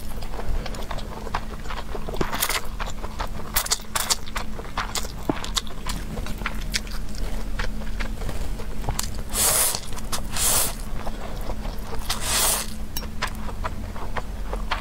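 Close-miked noodle eating: long, hissing slurps of noodles about two and a half seconds in, twice between nine and eleven seconds, and again at about twelve seconds, with wet chewing and mouth clicks in between. A faint steady low hum runs underneath.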